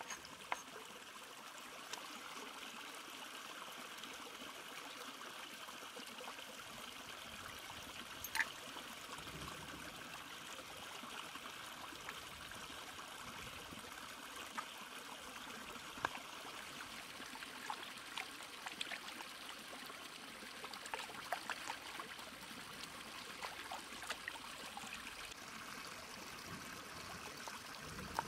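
Stream water trickling and running steadily, with scattered sharp taps of a knife against a wooden chopping board, a few of them close together in the second half.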